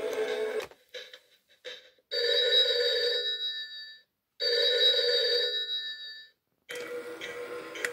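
Animatronic chameleon novelty telephone ringing: its music cuts out under a second in, then its electronic ringer sounds two rings of about two seconds each with a short gap, and the music starts again near the end. The phone is working after repair.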